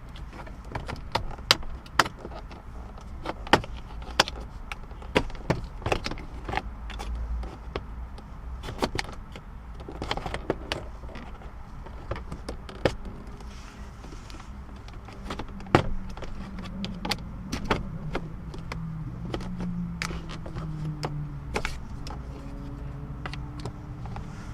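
Hands working on the center console and shifter trim of a car interior: a string of sharp plastic clicks, knocks and rattles, with some drawn-out creaking in the second half.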